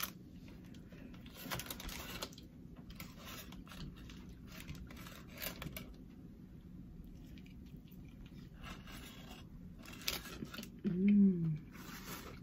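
Chewing and crunching on Nashville hot fried chicken, with scattered small crunches. A short hummed voice sound falls in pitch about eleven seconds in.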